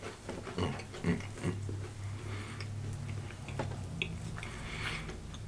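Dry saltine crackers being chewed, with irregular crisp crunches and cracks, over a low steady hum.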